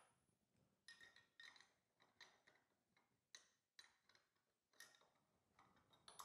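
Faint, irregular metallic clicks and taps as a metal clutch-holding tool is fitted against the toothed clutch drum of a kart engine and a socket wrench is set on the clutch nut.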